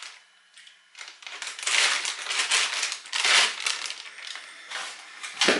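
Clear plastic bag crinkling and rustling as it is handled, in irregular crackly spells starting about a second in.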